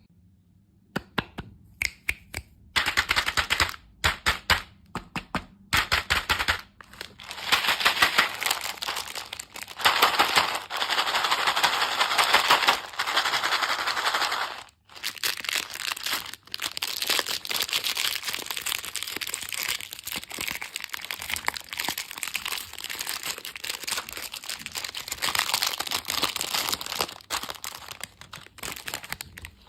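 Close-miked crunching and crackling of dessert sweets being eaten. It starts with a few separate clicks, builds into choppy bursts, then runs dense and continuous, with a short break about halfway through.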